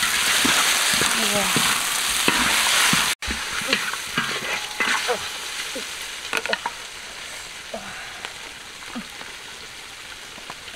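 Catfish pieces and lemongrass frying in hot oil in a large wok, sizzling loudly while being stirred with a utensil. After a brief dropout about three seconds in, the sizzle goes on more quietly, with scattered clicks and scrapes from the utensil.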